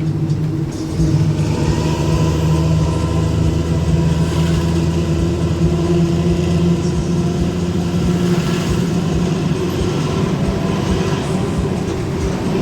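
Harapan Baru 'Obor' bus engine through its racing exhaust, running steadily under way with a deep growling ('ngorok') drone, heard from the rear seats inside the cabin. It gets a little louder about a second in.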